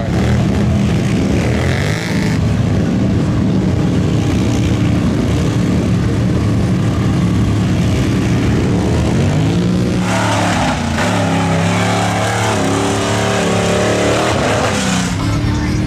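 Off-road vehicle engines running through mud, with one revving up and down over a hissing rush in the second half.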